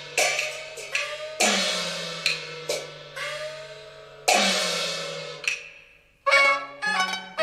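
Peking opera percussion: several gong and cymbal strikes, each ringing out and dying away. About six seconds in, a bowed fiddle melody from the accompanying band takes over.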